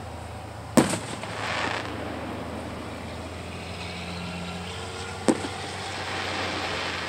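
Aerial firework shells bursting: two sharp booms about four and a half seconds apart, each trailing off into a noisy tail, over a steady low background hum.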